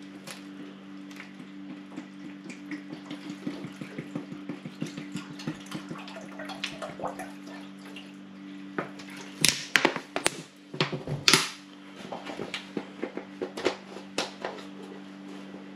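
Water pouring and glugging from a large plastic water bottle into the spout of a plastic hydration bladder, in small irregular gurgles and splashes. A few louder crackles and knocks of handled plastic come around the middle.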